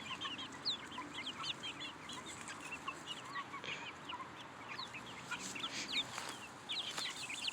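Backyard chickens clucking, with many quick high chirps overlapping all through.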